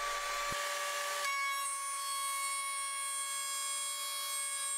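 Table-mounted router running steadily while a wooden strip is fed past the bit to cut a groove, a whine of several steady tones over the cutting noise. The tones shift about a second in.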